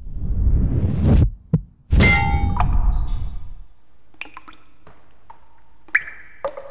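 Logo sting sound effects: a rising swell that cuts off about a second in, a click, then a loud hit with a ringing metallic chime that fades over about a second and a half. Faint scattered dings follow.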